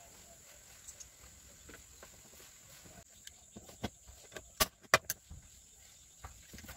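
A few sharp metallic clicks and knocks as steel bracket parts and a clamp are handled and set in place against the vehicle floor, the loudest three close together about halfway through.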